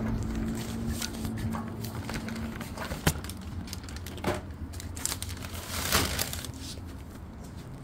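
White plastic grocery bags rustling and crinkling as they are handled and set down on a doormat, with a few sharp clicks. The sharpest click comes about three seconds in and the loudest rustle about six seconds in.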